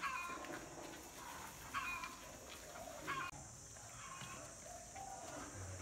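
Heo kiềng sắt piglets, a native Vietnamese pig breed, squealing in short calls that fall in pitch, about one every one and a half to two seconds, with fainter, lower calls after about three seconds.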